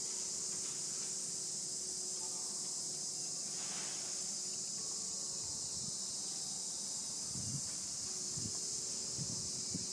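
Steady high-pitched chorus of insects droning without a break. A few soft low thumps come near the end.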